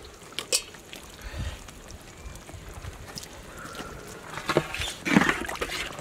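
A perforated metal skimmer stirring thick cream sauce in a large aluminium pot, with soft sloshing and scattered knocks, the louder ones near the end.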